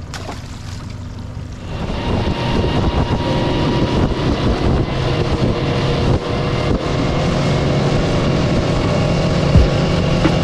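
Boat engine running as the boat gets under way, growing louder about two seconds in and then holding steady, with water and wind rushing on the microphone.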